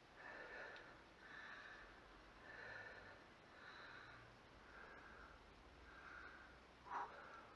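A man's forceful, rhythmic breathing, about one breath a second, as he strains to bend a thick cold-rolled steel bar by hand, with a sharper, louder breath near the end.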